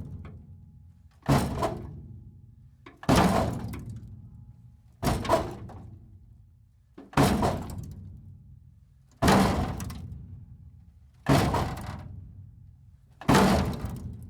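Metal breaking apart: seven crashing, cracking impacts, one about every two seconds, each dying away into a low rumbling tail.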